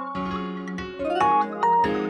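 Oppo Find X903 ringtone playing: an electronic melody of bright keyboard-like notes over a held bass note, with a quick rising run of notes about halfway through.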